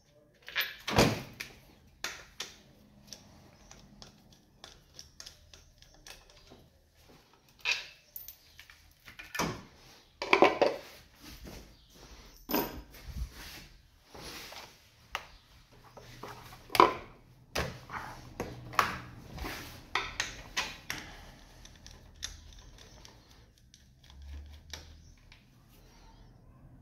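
Hand tools and loose parts clicking, clinking and knocking against metal under a car's hood, in irregular sharp strikes with a few louder clanks about a second in, around ten seconds in and around seventeen seconds in.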